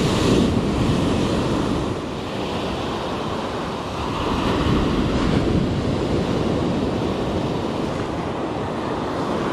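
Ocean surf breaking and washing up the beach, surging loudest in the first two seconds and again from about four seconds in, with wind rumbling on the microphone.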